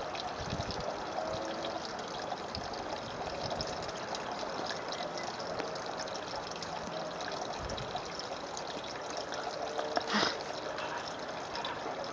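Steady trickling, running-water noise, with a brief sharper sound about ten seconds in.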